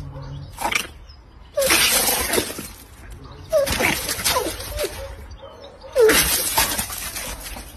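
A kitten hissing three times, each hiss starting sharply and fading over about a second.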